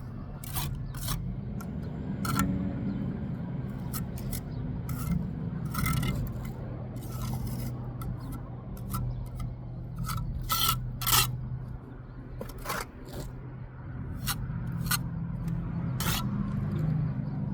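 Steel brick trowel scraping and working mortar on brick, with many short, sharp taps and clicks, over a steady low hum.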